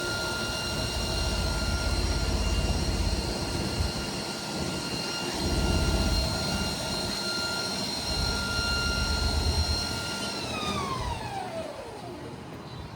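Haas TL-3 CNC lathe spindle running at 1,000 RPM with a steady high whine, over an uneven low rumble. About ten and a half seconds in, the spindle winds down: the whine falls in pitch and fades out as it stops.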